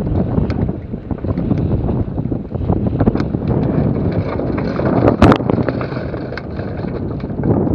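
Wind buffeting the microphone of a camera mounted at the masthead of a sailboat under way, with scattered sharp knocks and one louder knock about five seconds in.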